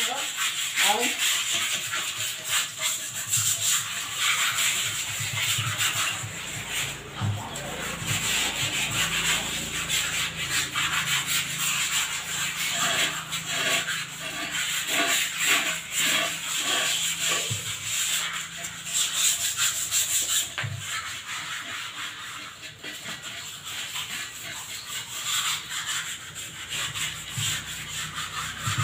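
Continuous, rapid gritty rubbing and scraping on the outer surfaces of freshly cast cement flower pots, scrubbed by hand to clean them.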